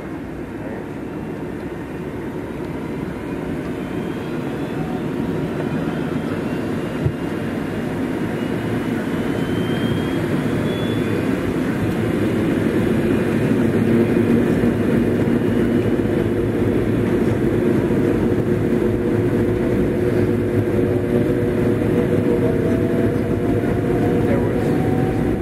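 Airliner jet engines and rolling noise heard from inside the cabin as the aircraft accelerates for takeoff, growing steadily louder over about fourteen seconds and then holding, with faint rising whine tones. A single click comes about seven seconds in.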